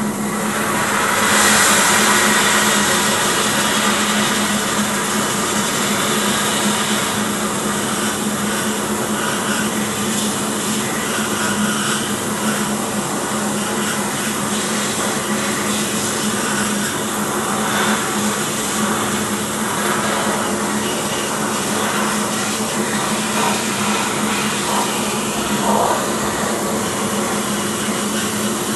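Steel shot blast cabinet blasting a cast-iron cylinder head with fine stainless steel shot: a steady hiss of air and shot against the metal, getting louder about a second in, over a steady low hum.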